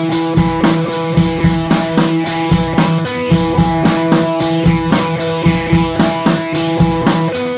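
Background music with a steady drum beat over sustained pitched tones.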